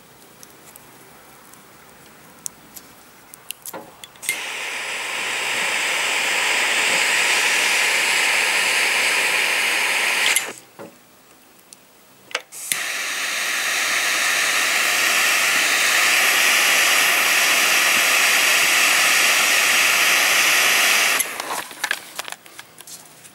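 A few light clicks, then a butane jet lighter clicks alight and burns with a loud, steady hiss for about six seconds while a cigar is lit. It cuts off, and after a short pause it is clicked on again and hisses for about eight more seconds.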